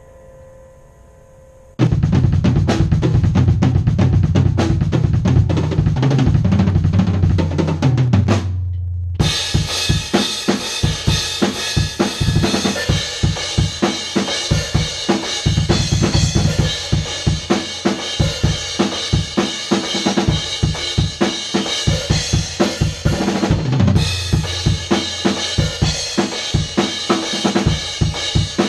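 Tama drum kit played hard: bass drum, snare and cymbals in a dense, driving pattern. It comes in about two seconds in, after a faint hum, and drops out briefly around nine seconds before the playing carries on.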